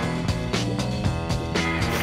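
TV commercial backing music with a steady drum beat and a bass line.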